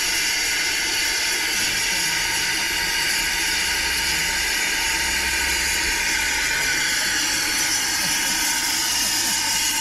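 Steam hissing steadily from the Stephenson's Rocket replica steam locomotive standing in steam.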